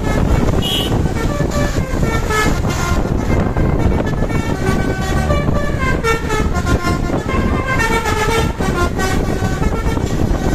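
Basuri telolet multi-tone bus horn playing a tune of short notes that step up and down in pitch, over a loud low rumble of road and wind noise.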